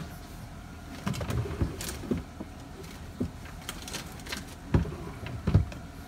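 A cloth rubbed over a refrigerator's glass shelf, with scattered light knocks and bumps, and two louder thumps near the end.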